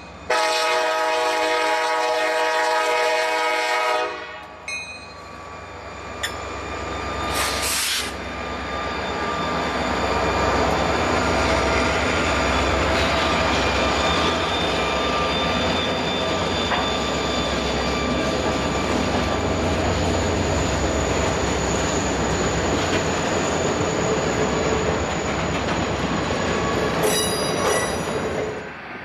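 Horn of two EMD SD40-2 diesel locomotives sounding one long blast of about four seconds at a grade crossing, then a brief toot. The locomotives pass close by with their engines working as they pull away. Freight cars follow, rumbling over the rails with some high wheel squeal.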